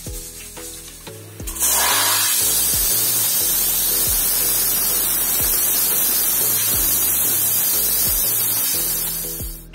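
Steam hissing out of an aluminium pressure cooker's weighted valve, held up with a spoon to release the pressure. The loud, steady hiss starts suddenly about a second and a half in and stops sharply near the end.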